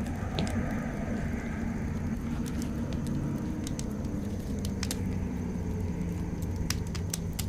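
Wood campfire crackling, with scattered sharp pops over a low steady rumble.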